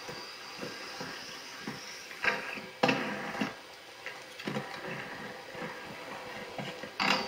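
Inline skates on rough concrete: wheels rolling, with several sharp knocks and scrapes from grinds and landings. The loudest come about three seconds in and again near the end.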